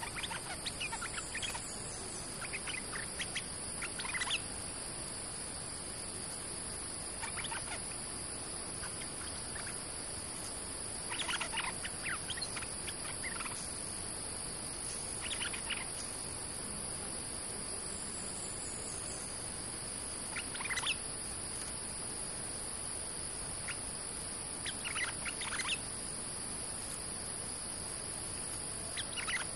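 Stripe-throated bulbul giving short, bubbly song phrases every few seconds, as a caged decoy bird calling to lure wild birds. A steady high insect drone runs underneath.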